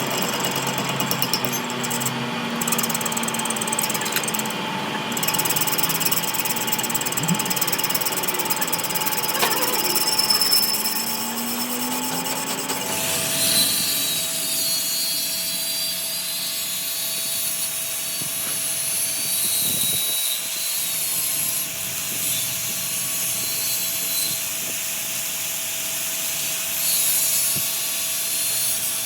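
Power tool running during workshop repair work, changing about halfway through to a hissing sound with a steady high whine.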